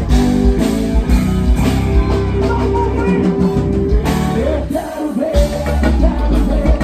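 Live band music: drums, bass, keyboards and electric guitar playing together, with a singing voice over them.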